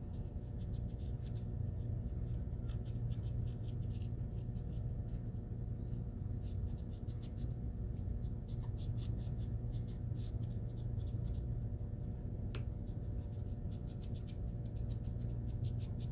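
A metal embossing tool rubbed dry over metal HVAC duct tape in quick short strokes, pressing the tape around raised letters: a rapid scratching like a pencil writing, over a steady low hum.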